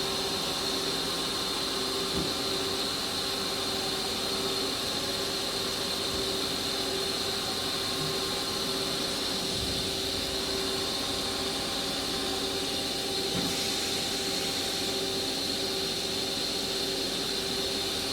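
Haas EC-1600-5X horizontal CNC machining center running, a steady mechanical hum with a high whine, while its X axis is jogged. The low end shifts slightly twice, around the middle.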